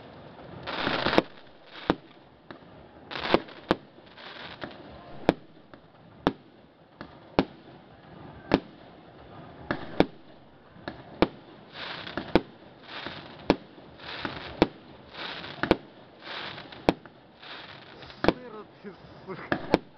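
Fireworks display: sharp bangs of exploding shells about once a second, with hissing and crackling between the bangs.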